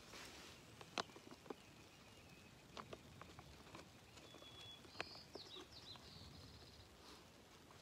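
Faint clicks and scrapes of a titanium spork working in a foil freeze-dried meal pouch, the sharpest about a second in and again about five seconds in. A bird sings in the middle: a short whistle, then a few falling chirps and a quick trill.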